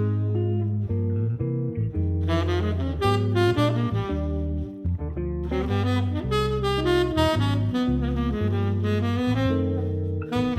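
Background music: a jazzy tune with a saxophone-like lead over a walking bass line.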